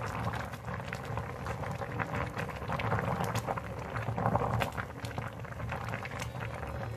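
Pot of green peppers boiling in a milky liquid that is turning to curd, bubbling steadily with many small pops.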